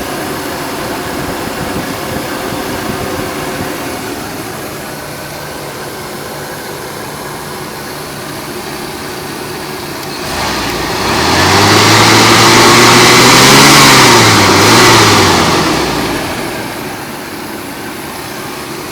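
Rolls-Royce 6.75-litre (412 cubic inch) V8 idling, revved once about ten seconds in: the pitch rises, is held for a few seconds with a brief dip, then falls back to a steady idle.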